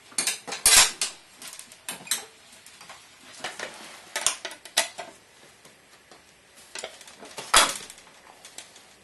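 Aluminium road-sign panels of a home-made camera clattering and knocking as the camera is opened and its hood fastened: a string of sharp metallic knocks and clicks, the loudest just under a second in and another near the end.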